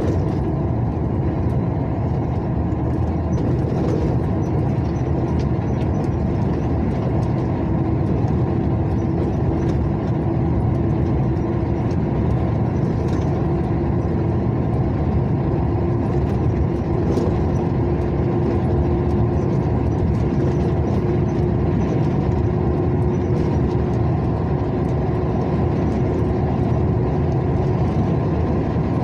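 Road vehicle travelling steadily on a highway: continuous engine and tyre noise, with a drone that rises slowly and slightly in pitch.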